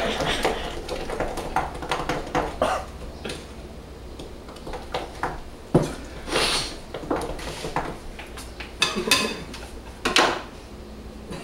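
Wooden spoon stirring a thick batter in a glass mixing bowl: irregular scrapes and knocks against the bowl, most frequent in the first few seconds.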